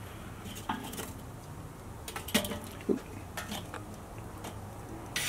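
Metal grill tongs clinking and knocking against hot charcoal briquettes and the steel charcoal baskets in a kettle grill as the coals are pushed into place: a handful of scattered clinks.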